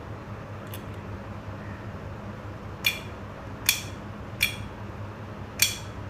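A small 12-volt DC solenoid door lock clicks four times, sharp and metallic, in the second half, as its bolt snaps in and out while power is switched on and off with a two-wheeler ignition key switch.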